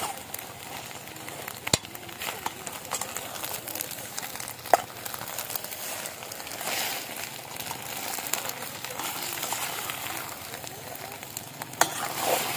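Eggs sizzling in a stainless steel pot over a wood fire while a metal spoon stirs and scrapes them, with a few sharp clicks of the spoon against the pot.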